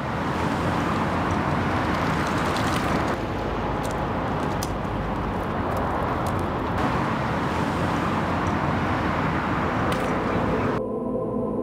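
City street traffic noise: a steady, dense rush of passing cars. It cuts off suddenly near the end and gives way to music with held notes.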